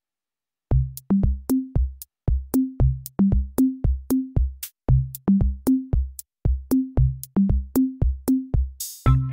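Background music: a drum-machine beat of low bass-drum and bass notes with sharp clicks, starting after a short silence. A swell comes near the end, and fuller sustained instruments then join in.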